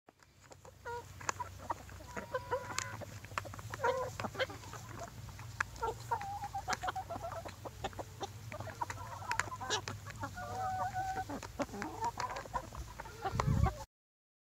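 Domestic chickens clucking in short, varied calls, with frequent sharp taps among them and a steady low hum underneath. A loud low thump comes just before the sound cuts off near the end.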